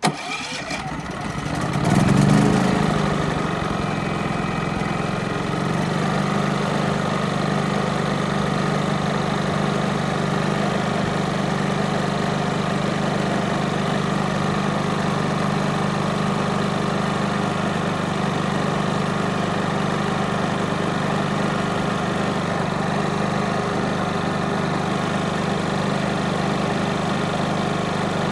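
Westinghouse iGen4500 inverter generator starting on its electric starter and catching at once. The engine surges louder about two seconds in, then settles into a steady run.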